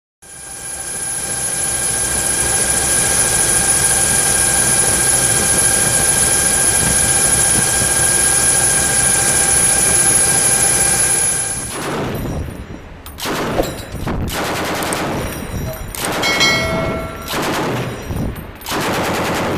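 Steady drone and whine of a helicopter's turbine engine for about the first twelve seconds. Then it cuts to irregular bursts of fire from a belt-fed M240 machine gun.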